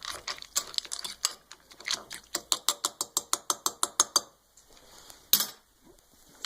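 A utensil mashing raw dog-food patties and kibble in a bowl, clicking rapidly and evenly against the bowl at about five or six strokes a second. The clicking stops about four seconds in, and one sharp clack follows a second later.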